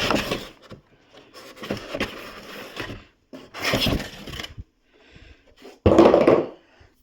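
Cardboard and plastic packaging being handled during an unboxing: several bursts of scraping and rustling, the loudest about six seconds in.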